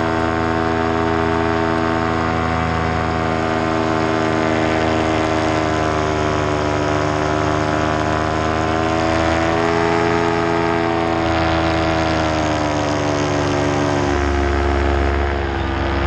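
Paramotor engine and propeller droning steadily in flight, its pitch rising and falling slightly.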